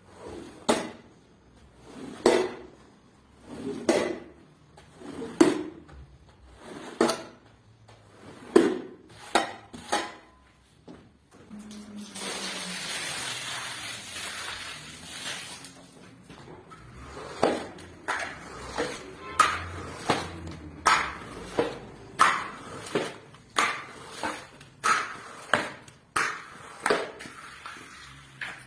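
Sharp knocks repeating about every second and a half, then a few seconds of hissing about twelve seconds in, then knocks again at a quicker, more even pace of about one a second.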